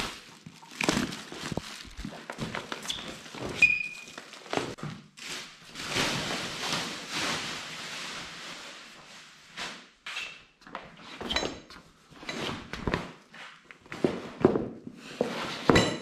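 Bubble wrap and the heavy PVC fabric of a deflated inflatable raft rustling and scraping in irregular bursts as the boat is unwrapped and unrolled on a concrete floor, with occasional thuds.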